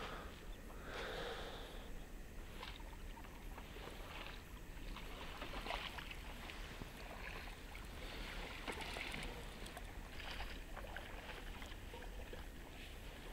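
Irregular soft water splashes and swishes, with scattered small clicks.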